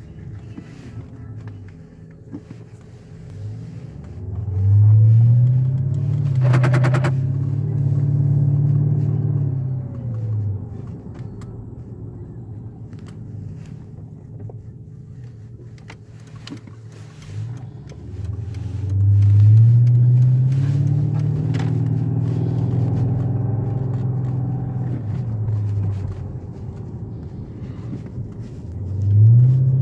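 Mercedes-Benz CLS 500's V8 engine pulling away, three times: the pitch climbs, holds, then falls away as the car eases off. There is a short buzzing burst about six and a half seconds in, during the first pull-away, which may be the strange take-off noise under investigation.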